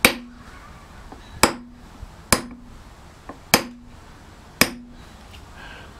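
A small nail set struck with a mallet to punch tiny round impressions into carved oak: five sharp blows about a second apart, each with a short ring.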